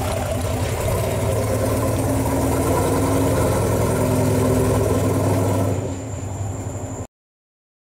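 The 1966 Ford Econoline pickup's 200 cubic-inch inline-six, breathing through a performance header and Flowmaster exhaust, running steadily at low speed as the truck rolls slowly. It drops in level about six seconds in and cuts off suddenly about a second later.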